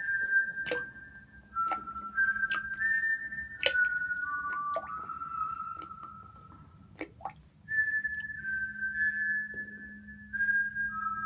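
A whistled melody of held notes stepping up and down, broken by sharp clicks every second or so, over a faint steady low hum. The tune pauses briefly just past the middle and resumes.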